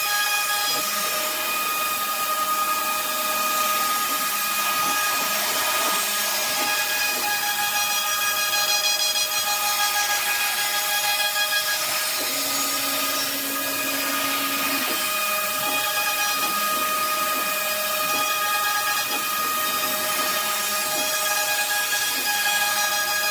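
CNC router spindle running at a steady high speed while it cuts wood or MDF, giving a constant whine over the noise of the cutting. A lower hum joins it for a couple of seconds around the middle.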